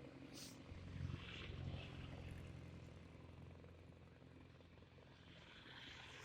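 Diesel bus engine running at low speed: a low, steady hum that swells about a second in and then eases off.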